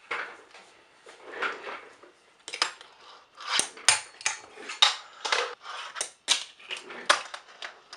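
Fingerboard tricks on a tabletop: the small board's wheels rolling, with its metal trucks scraping and clacking on a metal rail and a ledge. From about halfway through come about a dozen sharp clacks as the board pops and lands.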